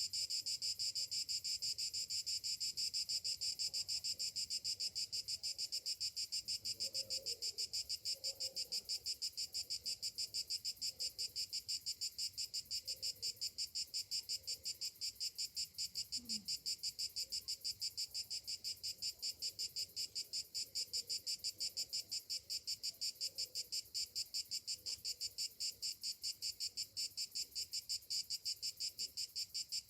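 Cicadas singing in a steady, high-pitched chorus that pulses rapidly and evenly, several beats a second.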